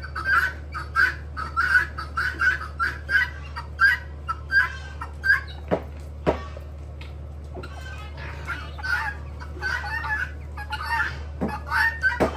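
Chickens clucking in quick repeated calls, with a few short sharp calls around the middle and near the end, over a steady low hum.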